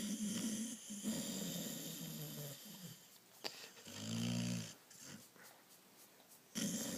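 Snoring in slow breaths: a long droning snore over the first two and a half seconds, a short click about three and a half seconds in, a shorter snore about four seconds in, and the next noisy breath starting near the end.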